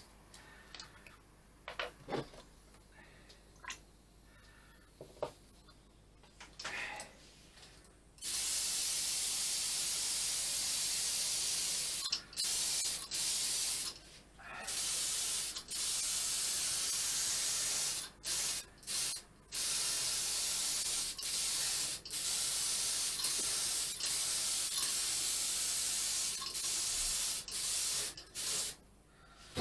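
A few light clicks and taps, then, about eight seconds in, a gravity-feed paint spray gun starts spraying: a loud, steady hiss of compressed air and atomised paint, broken by short pauses as the trigger is let go.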